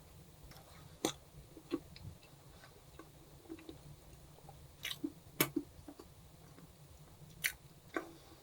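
A person chewing and biting food close to the microphone, with irregular sharp crunches, the loudest about a second in, about five and a half seconds in and about seven and a half seconds in.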